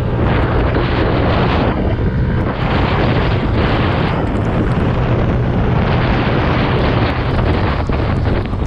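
Heavy wind rushing over a motorcycle rider's microphone while riding, with the bike's engine running steadily underneath.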